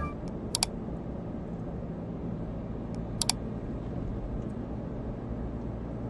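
Steady low rumble of a car driving, heard from inside the cabin, with two quick double mouse-click sound effects, one about half a second in and one about three seconds in.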